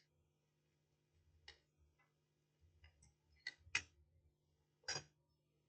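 Near silence with a few faint, short clicks, the clearest two close together just before the middle and one more about five seconds in.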